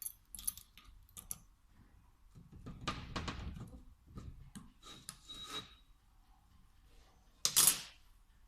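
Small metal parts of a VE diesel injection pump being handled on the bench: scattered clicks and scrapes, a longer rubbing noise about three seconds in, and a short, louder scrape near the end.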